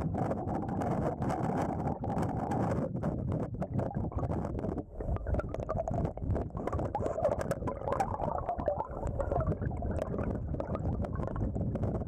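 Stream water rushing over rocks, heard from underwater as a muffled, steady rush with many small ticks and clicks of bubbles and gravel.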